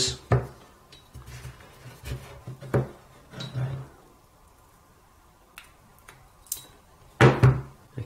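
Clicks and knocks of a micro-USB cable and a small plastic USB Connector adapter being plugged into two Samsung Galaxy phones, and of the phones being moved on a table. There are several short knocks in the first few seconds, a quieter stretch, then a louder knock shortly after seven seconds.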